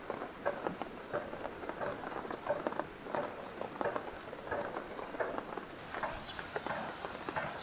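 Rain dripping and tapping irregularly on the tent, in scattered single drops rather than a steady downpour.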